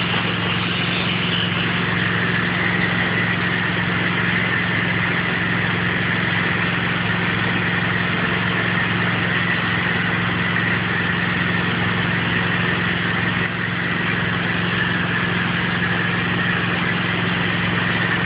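Gas-engine pressure washer running steadily under load, with the hiss of the high-pressure spray as soap is shot up the siding through an X-Jet nozzle.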